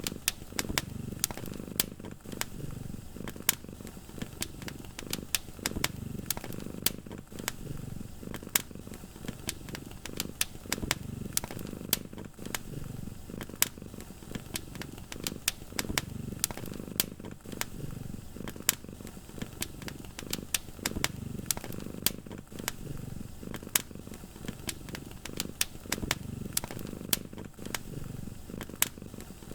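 A cat purring, a low rumble that swells and fades in slow waves about every two seconds. Over it, a wood fire crackles with frequent sharp pops.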